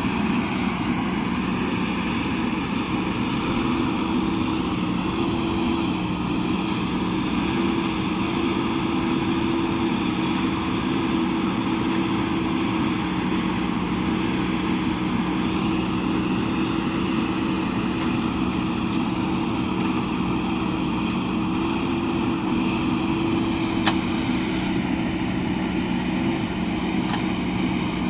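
JCB backhoe loader's diesel engine running at a steady speed, a constant drone with only slight shifts in pitch.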